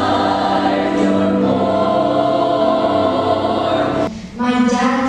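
Girls' chorus singing in harmony, holding long chords; the singing breaks off briefly about four seconds in, then a new chord starts.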